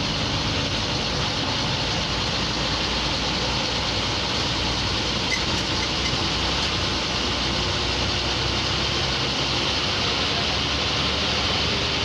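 MSRTC diesel bus engine running steadily as the bus drives along, heard from inside the driver's cabin next to the engine cover, with an even din of engine and road noise.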